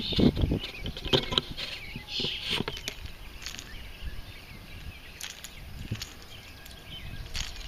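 Handling noise from unhooking a landed bass with metal pliers: scattered clicks and rustles, busiest in the first second, as the crankbait's treble hook is worked free. Birds chirp faintly in the background.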